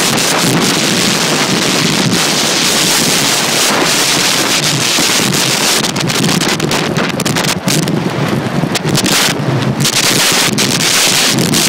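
Wind rushing and buffeting the microphone at downhill speed, over a steady rumble of inline skate wheels rolling on rough asphalt.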